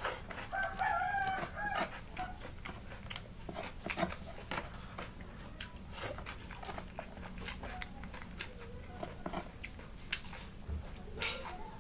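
Close-up mouth sounds of eating rice-field snails (keong sawah): repeated wet sucks, slurps and smacks as the meat is sucked out of the shells, with chewing. A wavering, drawn-out cry rises over them from about half a second in and lasts about a second.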